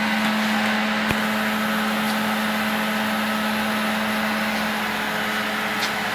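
Vacuum cleaner running steadily: a constant motor hum with a rushing hiss of air, with a faint click about a second in.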